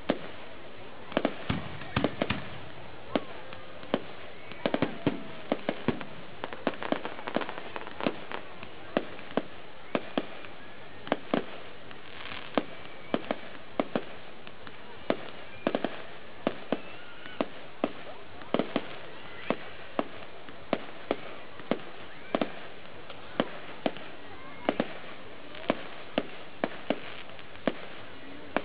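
Aerial firework shells bursting in a continuous display: sharp bangs roughly one or two a second, sometimes in quick clusters.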